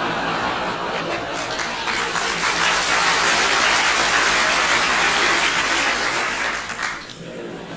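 Crowd laughing together, swelling to a peak in the middle and dying down sharply near the end.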